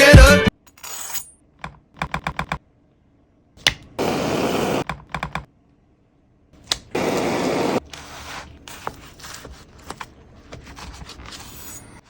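Background music cuts off about half a second in, giving way to kitchen food-preparation sounds. There are runs of quick sharp taps like a knife on a cutting board, and two bursts of steady hiss about a second long each.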